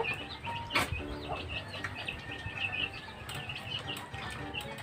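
Birds chirping over and over, many short high chirps, with a few sharp clicks, the loudest a little under a second in.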